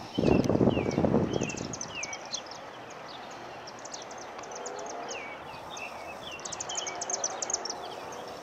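Small birds chirping and calling over and over, with short falling chirps and quick clicky trills. A loud, low rushing noise sounds in the first second and a half.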